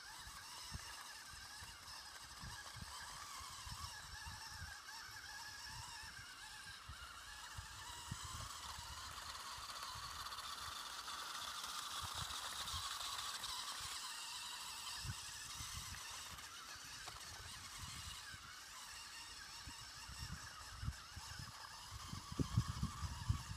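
Radio-controlled Claas Axion 850 model tractor driving on rough ground, its small electric drive motor and gearbox whining steadily. The whine grows louder for a few seconds about midway as the tractor comes close.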